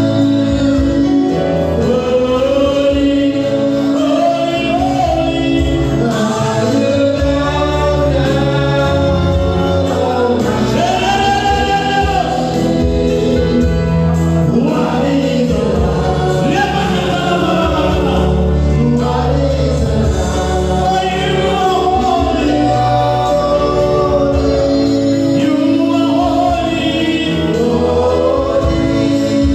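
Gospel music: a choir singing together with a steady low accompaniment, at a continuous, even loudness.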